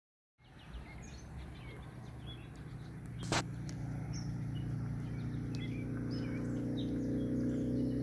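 Songbirds chirping and trilling, with a low steady hum building up from about halfway and a single sharp click about three seconds in.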